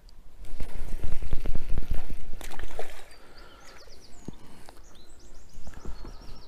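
Hooked trout being played on a light spinning rod: for a couple of seconds there is loud splashing and clattering as the fish thrashes near the surface. Then it turns quieter, with runs of short high chirps.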